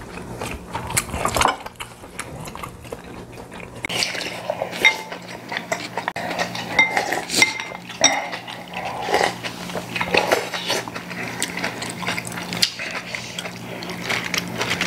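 Metal chopsticks clicking and scraping against ceramic bowls, with bowls knocked down on the table, in many short, irregular clinks, some of them ringing briefly; slurps of soup come among them. A low steady hum runs underneath.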